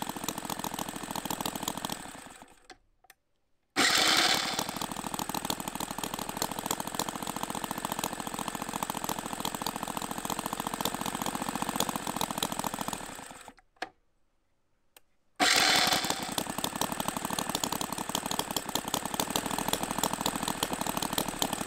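Jerry Howell V-twin model petrol engine running at a fast, even beat. It dies away about two and a half seconds in, then comes back loud and abruptly after a second's pause and runs for about nine seconds. It fades out again, and after a two-second gap returns abruptly and runs on.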